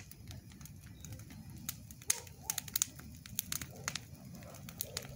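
Wood bonfire burning, with irregular sharp pops and crackles over a low steady noise.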